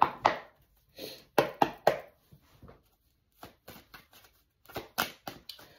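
A tarot deck being shuffled and handled: a run of sharp, irregular card taps and snaps.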